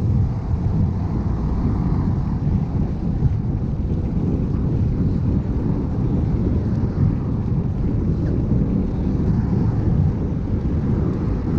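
Wind buffeting a GoPro Hero6's microphone while cycling at speed: a steady, loud low rumble, with the camera's wind-noise reduction switched off.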